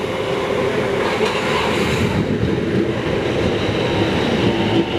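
Commuter train running into the station alongside the platform: a steady rumble of wheels on rail that builds a little in the first second and then holds.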